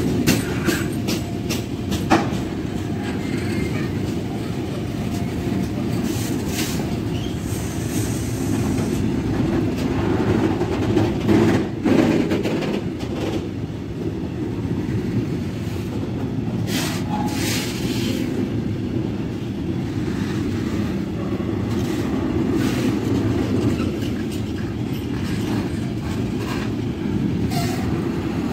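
A train rolling past on the rails: a continuous low rumble of wheels on track, broken by repeated sharp clacks as the wheels cross rail joints.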